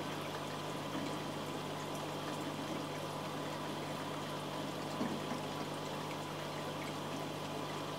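Steady trickling and bubbling of aquarium water in a room full of running tanks, over a low steady hum, with a faint knock about five seconds in.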